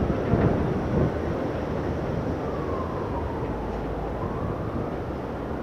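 Steady low rumble of a distant New York City Subway train on an elevated line. A faint wailing tone falls and then rises in pitch near the middle.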